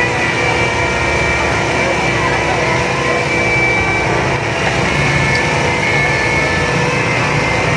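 A motor engine running steadily and close, a continuous hum with some faint steady whines above it.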